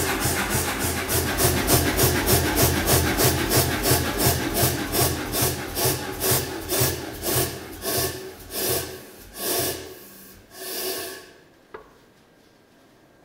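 Self-contained air power hammer running with its ram held up, its pistons pumping at about four strokes a second, then slowing stroke by stroke as it winds down and stops near the end, followed by a single click. It is the hammer's first run after reassembly with a new, very tight leather seal in the front cylinder and the cylinder flooded with oil.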